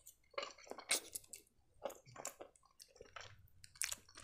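A person chewing a mouthful of creamy penne pasta, making short, irregular wet chewing sounds.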